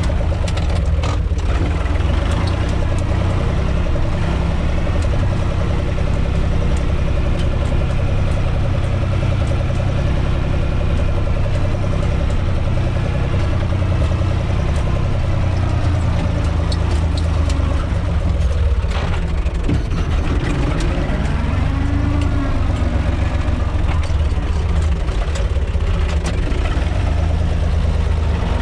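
UTB 445 tractor's four-cylinder diesel engine running steadily as the tractor is driven slowly, heard from inside its cab, with a few short knocks and rattles.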